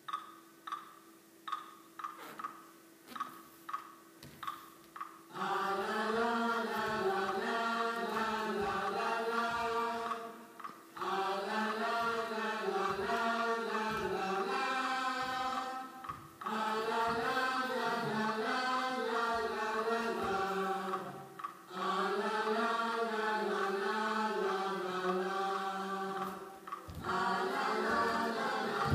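Music for the dance: a few seconds of evenly spaced struck notes, about two a second, over a held tone, then a choir singing in long phrases with brief pauses between them.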